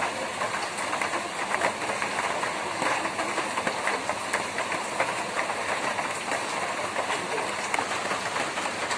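Rain falling on a tin roof: a steady hiss dotted with many irregular taps of drops hitting the metal.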